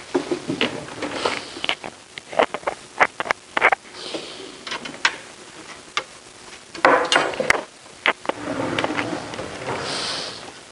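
Metal truss poles and their clamps of a Dobsonian telescope being fitted into the wooden mirror box during assembly: an irregular run of sharp clicks, knocks and clunks, with a short rustle near the end.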